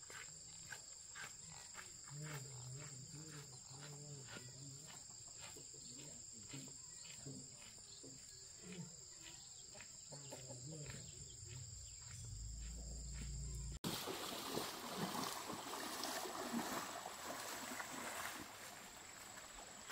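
Footsteps tapping at an even pace, about two or three a second, over a steady high insect drone. Partway through it changes abruptly to a shallow stream's running water, with splashing as someone wades through it.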